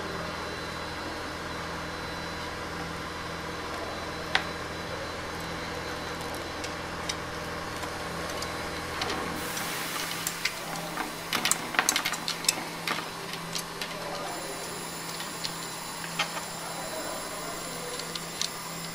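Light clicks and ticks of thin wire being wound by hand into loops around a model tree trunk, over a steady machine-like hum. The clicks come thicker from about ten seconds in.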